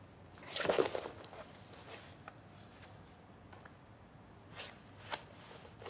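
Quiet room tone with one brief soft rustle, like a paperback book being handled, about half a second in, then a few faint ticks.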